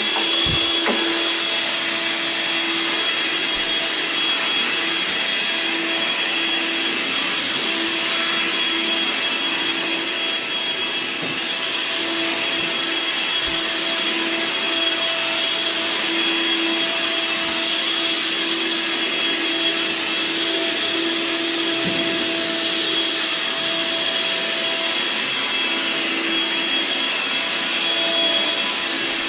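Vacuum cleaner running steadily: a motor whine over a constant rushing hiss, dipping slightly in loudness about ten seconds in.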